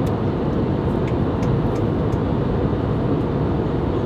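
Steady cabin noise of an airliner in flight, with a few faint light clicks over it.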